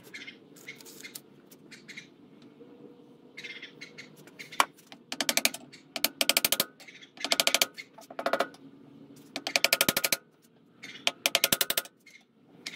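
Wooden mallet tapping an old seal used as a driver, seating a new front knuckle seal flush in a Kubota B7500 front axle knuckle. Light handling clicks come first, then from about midway several short bursts of quick, rapid-fire taps.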